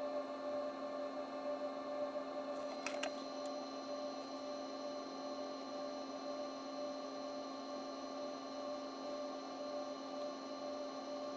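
Steady electrical hum made of several even tones, broken by two sharp clicks about three seconds in.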